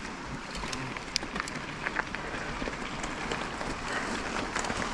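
Mountain bike tyres rolling and crunching over a gravel and dirt trail, with scattered sharp clicks and rattles throughout.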